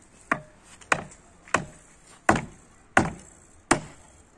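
Sledgehammer driving a wooden post into the ground: six sharp blows on the post top, about two-thirds of a second apart.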